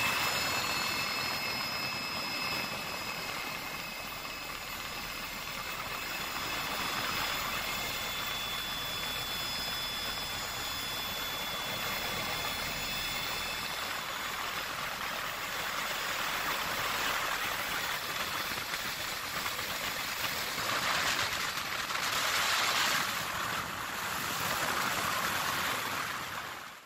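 Steady rushing noise of a helicopter in flight, heard from aboard, swelling slightly before fading out at the end.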